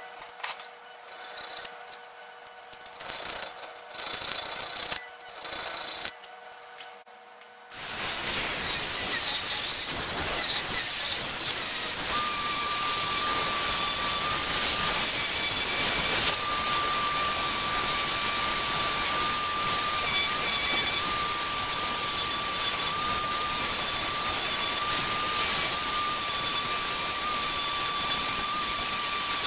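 Short, intermittent scratchy bursts, then from about eight seconds in a handheld rotary tool with a small sanding drum runs steadily against the cast iron of the can opener: a constant high motor whine over a gritty sanding rasp.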